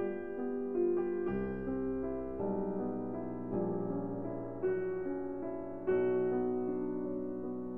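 Soft background piano music: slow notes and chords, each struck and left to fade.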